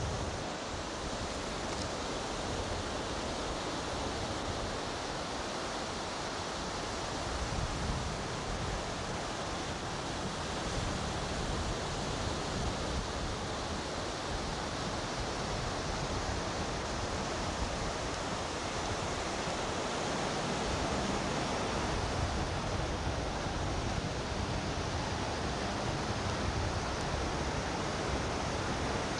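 Steady rushing wind noise with irregular low rumbling, like wind buffeting the microphone.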